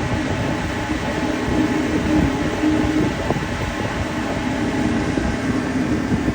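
Ship's machinery running with a loud, steady mechanical drone and a constant low hum.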